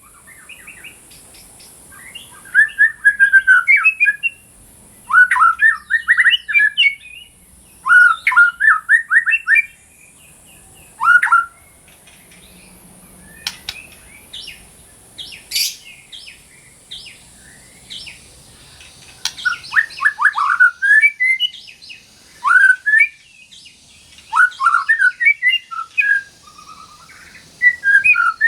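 White-rumped shama (murai batu) singing in short bursts of fast, sweeping whistled and chattering notes, a phrase every two to three seconds, with a sparser stretch of scattered notes near the middle. A steady high hiss runs underneath.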